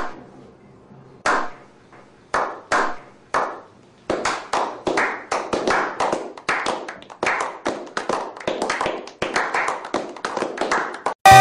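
Slow clap by a small group of people: single claps spaced about a second apart, quickening about four seconds in into faster clapping by several pairs of hands.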